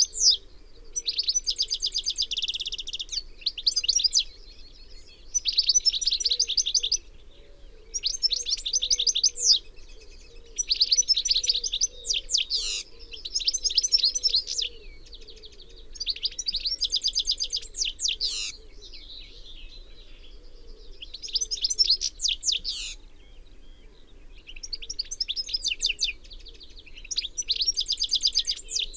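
European goldfinch singing: phrases of rapid, high trilled notes, each a second or two long, repeated with short pauses.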